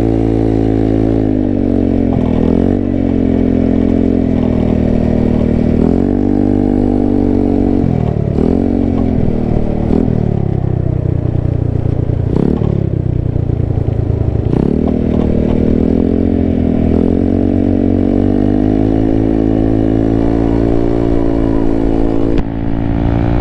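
GY6 scooter engine in a modified Honda Ruckus, running through a Yoshi exhaust while riding. Its pitch falls and climbs again several times as the throttle is rolled off and back on. The exhaust is held by a newly fitted hanger.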